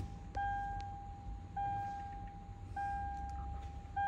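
Toyota Land Cruiser's warning chime, a single mid-pitched ding repeating about every 1.2 seconds, four times, each fading before the next.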